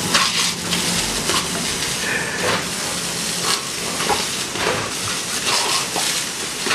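Garden hose spray nozzle hissing as its jet strikes brick paving, the spray spattering unevenly as a dog bites and snaps at the stream.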